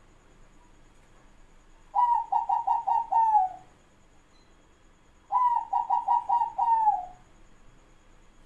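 Zebra dove (perkutut) cooing twice. Each phrase is a quick run of about five short notes ending in a longer falling coo.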